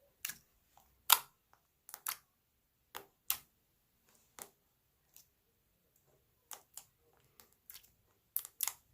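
Putty-like lavender slime being squeezed and stretched by hand, giving off irregular sharp clicks and pops, the loudest about a second in and a quick cluster near the end.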